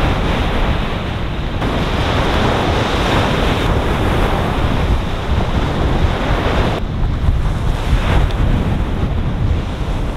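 Ocean surf washing on the beach with strong wind buffeting the microphone, a loud, steady, deep rushing noise.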